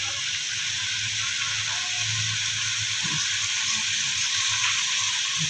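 Skipjack tuna sizzling steadily in a double-sided nonstick grill pan, basted with butter and sweet soy sauce.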